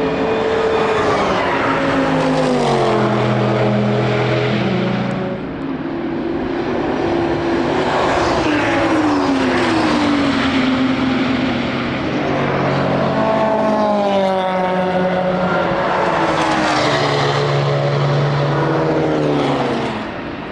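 Race cars passing trackside one after another, their engine notes loud and falling in pitch as each goes by.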